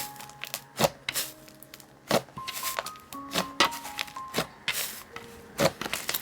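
Soft background music, a slow melody of held notes, over about ten sharp, irregular clicks and pops from a creamy, clay-mixed slime being squished and poked by hand.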